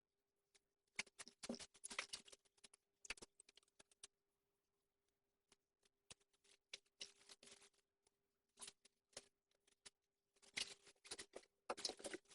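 Close rustling and clicking of small objects being handled, in several short bursts with quiet pauses between them.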